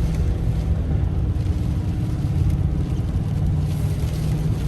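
Steady low rumble of a truck driving at highway speed, heard from inside the cab: engine and road noise.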